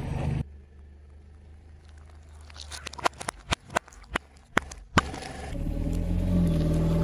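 Sharp cracks and pops, about ten in two and a half seconds, as objects break under a car tyre, the last crack the loudest. The car's engine then runs with a steady hum.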